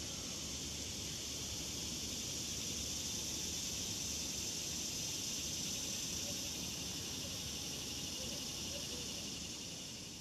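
Steady high-pitched insect chorus buzzing without a break, with a low, even rumble of background noise beneath it.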